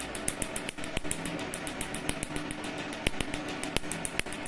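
PicoSure picosecond laser firing pulse after pulse on tattooed skin: rapid, evenly spaced snapping, several a second, over a steady hum.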